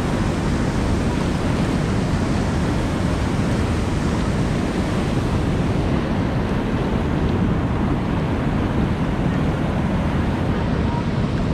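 Steady rush of moving water, with wind on the microphone.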